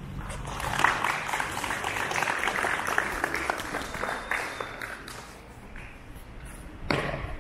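Audience applauding, dying away about five seconds in, followed by a short, sharp sound near the end.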